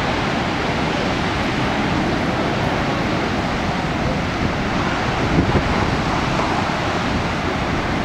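Steady rush of heavy ocean surf and wind, with wind buffeting the microphone.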